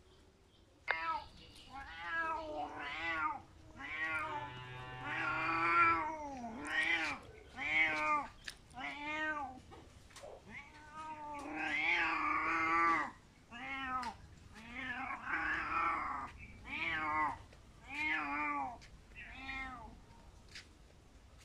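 A domestic cat crying, a long run of loud, drawn-out meows with short gaps between them. Each meow rises then falls in pitch. The calls start about a second in and stop shortly before the end.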